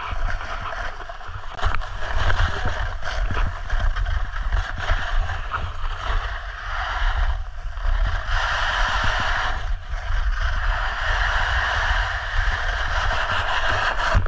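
Snowboard sliding and carving down a snowy piste, its base and edges scraping on the snow in a steady hiss that swells and dips with the turns, with wind rumbling on the microphone.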